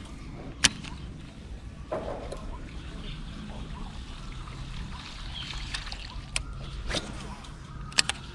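Water trickling and sloshing around a kayak, with several sharp clicks or knocks, two close together near the end.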